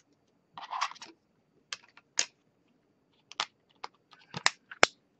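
Sharp plastic clicks and taps, about ten scattered irregularly, with a short rustle about half a second in, as an iPhone 4S is slid and snapped into a clip-on phone case.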